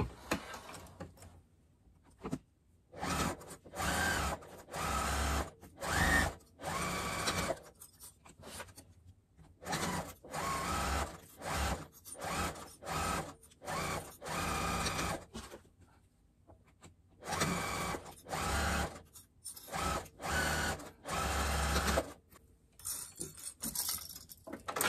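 Electric domestic sewing machine stitching a seam through two layers of interfaced quilting cotton, run in many short stop-start bursts of about half a second to a second each, with brief pauses between. It starts about three seconds in and stops a couple of seconds before the end.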